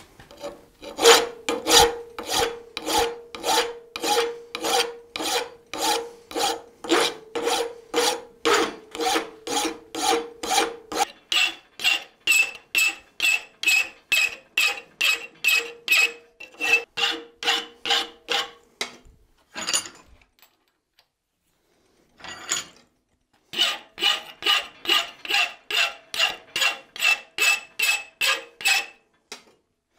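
Hand file cutting forged steel clamped in a bench vise: even push strokes about two a second, with a faint ringing tone from the workpiece, as the wings of a thumb screw are filed to profile. The filing pauses for a couple of seconds past the middle, then resumes.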